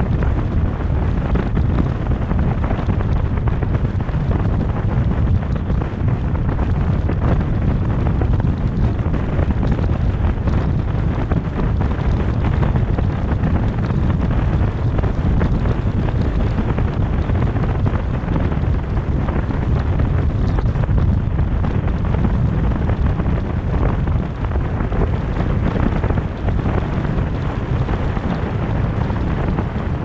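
Steady, loud wind noise buffeting the microphone of a camera on a moving car, over the rumble of tyres on the road at speed.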